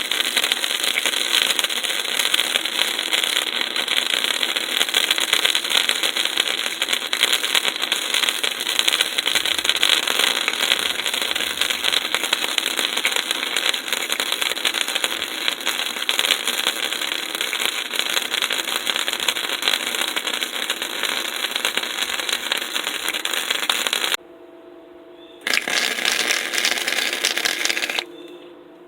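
Electric arc welding of scrap steel: a steady, dense crackle and sizzle of the arc. It stops abruptly near the end, restarts for a couple of seconds and cuts off sharply again as the trigger is released.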